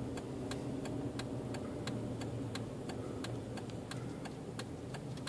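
Car turn-signal indicator clicking steadily, about three clicks a second, over the low hum of the car running.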